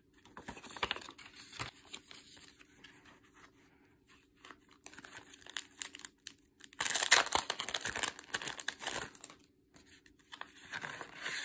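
Clear plastic bag crinkling and rustling as it is opened and a pack of grey paper envelopes is pulled out, with the loudest burst of crinkling from about seven to nine seconds in and another near the end. Lighter rustles and taps of paper cards being handled come first.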